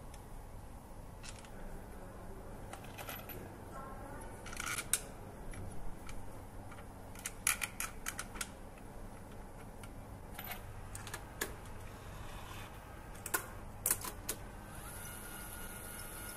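Scattered sharp clicks and plastic clatters as a black plastic engine component is handled and fitted onto a metal assembly fixture, in several short clusters over a steady machinery hum. A high hiss starts near the end.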